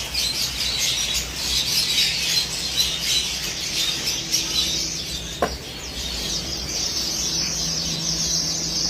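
Many small caged birds chirping and chattering steadily together, with one sharp click about five seconds in.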